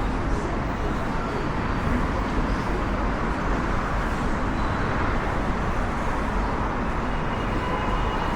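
Steady noise of road traffic on a busy city avenue, with motor vehicles passing continuously.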